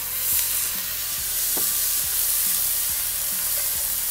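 Wet chickpeas poured into hot oil in a cast iron skillet and sizzling loudly and steadily, the sizzle jumping up as they hit the pan. A few light knocks from a wooden spoon stirring them.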